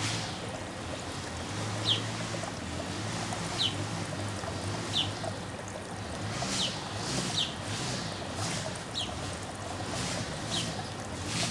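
A small backyard bird calling with short, high, downslurred chirps, about seven of them spaced a second or two apart, over a steady rushing hiss.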